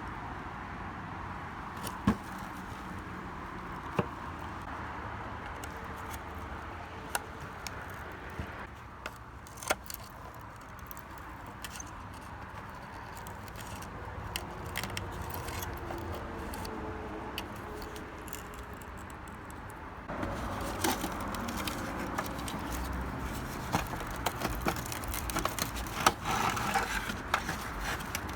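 Light metallic clinks and taps of small metal parts and hand tools being handled on a steel toy truck, over a steady background hiss. The clinking grows louder and busier about two-thirds of the way through.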